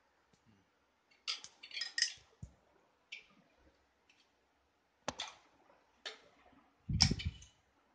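Metal clinks and knocks as a cast-iron cylinder barrel is handled and lowered over the piston and onto the studs of a Yezdi/Jawa engine: scattered sharp contacts, the loudest a heavier knock with a low thud near the end.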